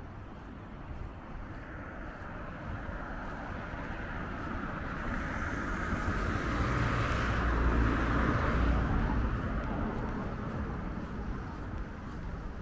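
A car driving past on the road. Its tyre and engine noise swells over several seconds, peaks a little past the middle and fades away.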